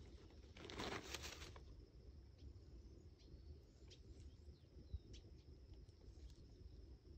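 A brief rustle of dry leaves and grass about a second in, as a kitten moves through the undergrowth, then a few faint ticks over near silence.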